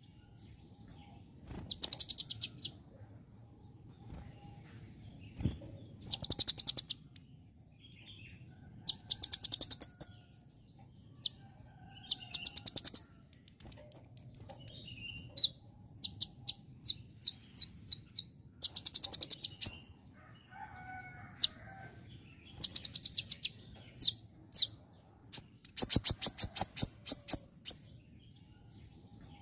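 Caged sunbird singing in repeated bursts of rapid, high chips, each burst about a second long and a few seconds apart, with runs of single chips between them. The song imitates the call of a bar-winged prinia (ciblek).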